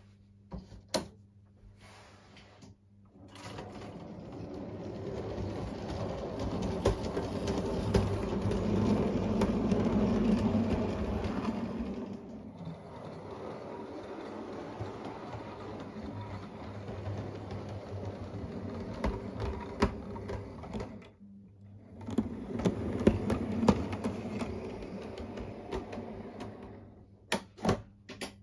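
O gauge model train running on the layout track, a rattling mechanical clatter of wheels on rails. It swells to its loudest about ten seconds in and drops out briefly about two-thirds of the way through before picking up again. A few sharp clicks come near the start and the end.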